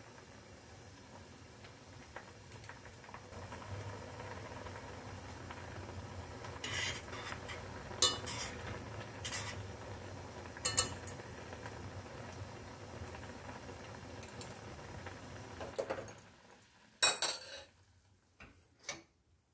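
Ramyeon boiling in a stainless steel pot with a steady bubbling hiss, stirred with metal chopsticks that clink sharply against the pot several times. About sixteen seconds in the bubbling stops, and a few metal clanks follow as the pot is handled.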